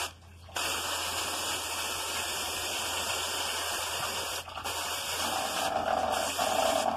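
Hose spray nozzle jetting water into a walk-in cooler's evaporator coil: a steady hiss of spray that starts about half a second in, with a short break about four and a half seconds in. The coil is being rinsed of the dirt packed on its inlet side.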